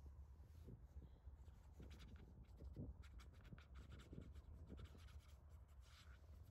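Faint scratchy strokes of a watercolour brush working on sketchbook paper, quickest in a run through the middle, over a low steady rumble.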